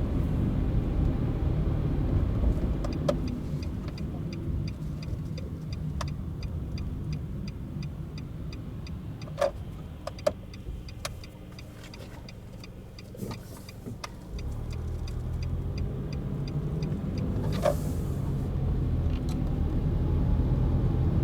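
Car cabin noise while driving: steady low engine and road rumble that drops to its quietest about twelve seconds in as the car slows, then rises again as it pulls away and speeds up. Faint, evenly spaced ticking and a few sharp knocks sit over the rumble.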